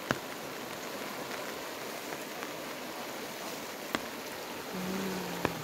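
Steady hiss of heavy rain with the rush of a flooding river, muddy floodwater running high. Three sharp clicks cut through it, and a short low hum comes in near the end.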